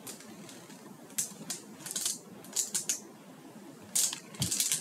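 Pages of a hardcover picture book being handled and turned: a series of short, crisp paper rustles and taps, the loudest about four seconds in.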